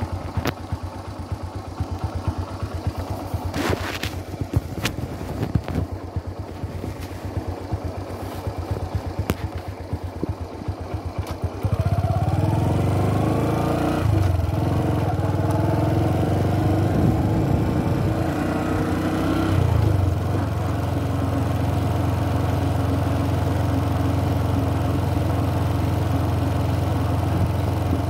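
Motorcycle engine idling with a rapid, even putter and a few sharp clicks. About twelve seconds in it suddenly gets louder as the bike pulls away, its pitch rising through the gears, then runs steadily.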